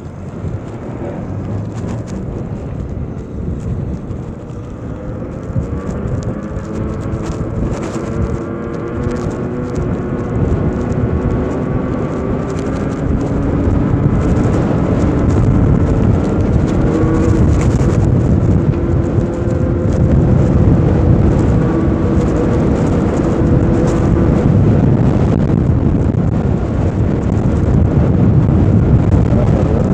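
Wind buffeting the microphone while riding a custom electric bike, a heavy low rumble that builds over the stretch. Under it an electric motor whine rises in pitch as the bike picks up speed, then holds steady before fading near the end.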